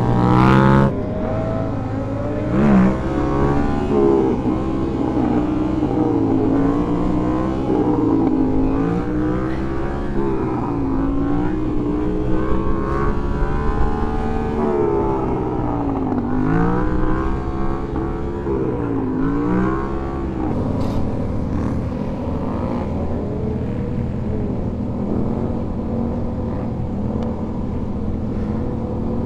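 Motorcycle engines running on a group ride, revved over and over so the pitch keeps rising and falling, with a loud rev in the first second. After about twenty seconds the revving stops and the engines settle into a steadier drone.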